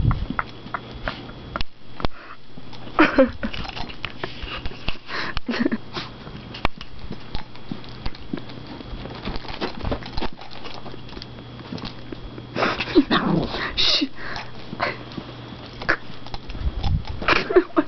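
Yorkshire terriers making several short vocal sounds while playing, with a cluster of them a little past the middle and another near the end.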